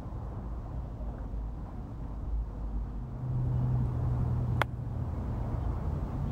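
A golf club striking a ball on a short chip shot: one sharp click a little past halfway through. Under it runs a low steady rumble, joined by a low hum about halfway in.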